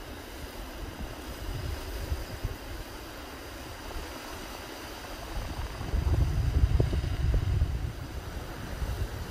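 Sea waves washing over a rocky shore, with wind buffeting the microphone as a low rumble that grows heavier for about two seconds around six seconds in.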